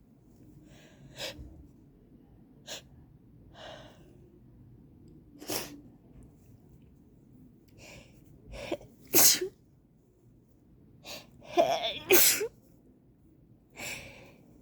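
A woman sneezing over and over in an allergy sneezing fit: a string of short sneezes that grow louder, the loudest about nine and twelve seconds in.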